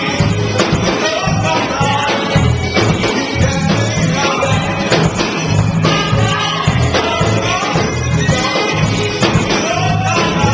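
Gospel music performed live: voices singing together over a band with a steady bass line and tambourine.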